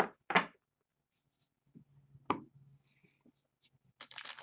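Handling sounds on a tabletop: two sharp taps right at the start and another about two seconds in, then paper rustling near the end as a stack of white papers is set down on the mat.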